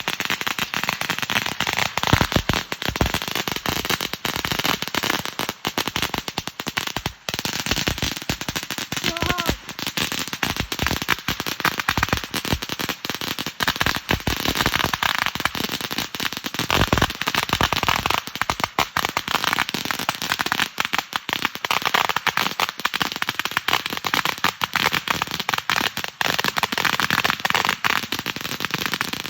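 A long string of about 2000 firecrackers hanging in a tree going off nonstop, a dense, rapid crackle of bangs that never lets up.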